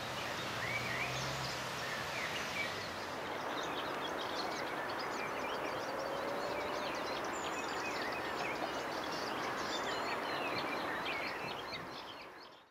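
Birds singing and chirping repeatedly over a steady hiss of outdoor noise, fading out near the end.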